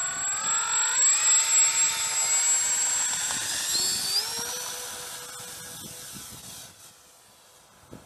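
Twin electric motors and propellers of a Dynam Grand Cruiser (Cessna 310) RC plane run up to takeoff power. It is a high whine with several pitches that steps up about a second in, holds with a steady high tone over it, and shifts in pitch near four seconds. It then fades away over the next few seconds.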